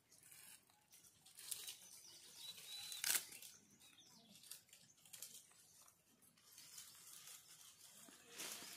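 Faint, scattered rustling and crackling of dry fallen leaves as young gray langurs shift about in the leaf litter, with one sharp crack about three seconds in.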